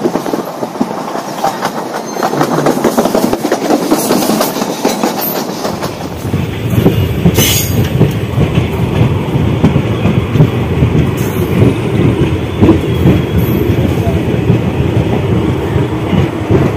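Passenger train running on the rails, heard from inside the coach: a steady rumble and clatter of the wheels, growing heavier about five seconds in.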